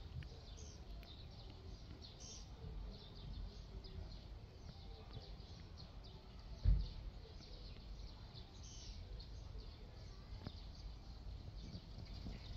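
Small birds chirping again and again over a steady low outdoor rumble, with one dull thump about two-thirds of the way through.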